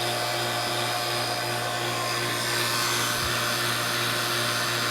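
Electric refrigerant vacuum pump running with a steady hum and hiss, evacuating a car's air conditioning system.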